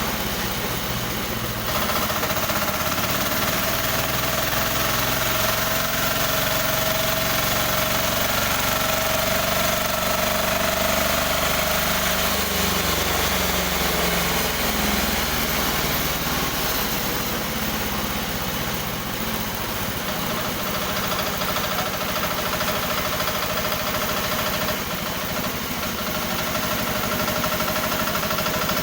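Newly assembled sawmill machine running during a test run: a steady mechanical drone with a whining tone that changes pitch about twelve seconds in and again later.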